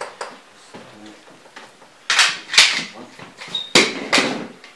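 Skis being handled at a workshop bench: two short noisy clatters or scrapes about two and four seconds in, the second starting with a sharp knock, with a brief high squeak just before it.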